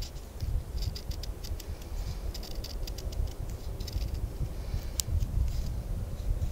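Small folding knife shaving thin curls off a wooden stick to make a feather stick: a quick series of short, irregular scraping strokes, with one sharper click about five seconds in, over a low rumble.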